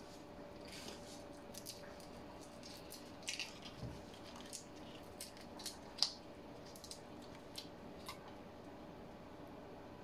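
Raw shrimp being peeled by hand: faint, scattered crackles and clicks as the shells are pulled off, with a wet squish now and then. The loudest click comes about six seconds in.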